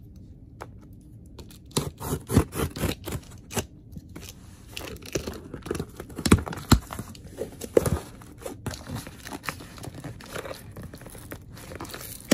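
Cardboard shipping box being opened by hand: packing tape ripping, cardboard scraping and packing paper crinkling, in irregular rustles and sharp clicks that start about a second and a half in.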